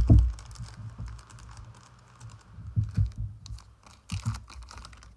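Hands handling football trading cards and their foil packs on a cloth-covered table: a loud knock at the start, then light rustling and a few more taps and knocks about three and four seconds in.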